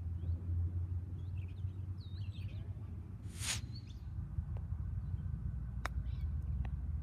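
Wind rumbling on the microphone, with birds chirping in the background. Near the middle comes a short burst of hiss, and about six seconds in a single crisp click as a 9 iron strikes a golf ball on a bump-and-run chip.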